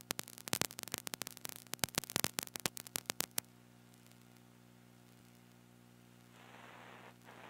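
A quick, irregular run of clicks and pops for about the first three and a half seconds, over a steady electrical mains hum that carries on alone afterwards. A hiss joins the hum about six seconds in.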